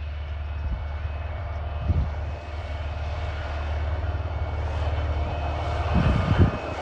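Diesel engine of the Iarnród Éireann track recording vehicle, a self-propelled yellow rail car, running steadily as it travels along the line, with a low drone and a rush of running noise that grows louder as it draws nearer. Short low thumps come about two seconds in and again, louder, near the end.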